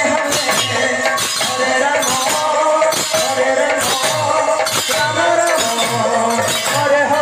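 Live sankirtan devotional music played at a steady beat: repeated drum strokes, jingling metal percussion and a wavering melody line, all without a break.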